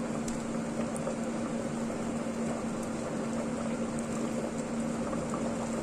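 Pot of soup boiling on the stove: a steady bubbling hiss under a constant low hum.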